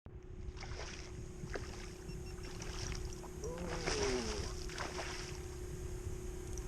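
Sounds of a kayak on open water: a steady low rumble of wind on the microphone and water against the hull, with a faint steady hum, a few light clicks and a short squeak near the middle.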